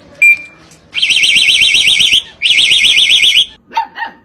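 An electronic alarm sounding a fast-warbling high tone in two bursts of about a second each, with a short gap between them. A short beep comes just before the first burst.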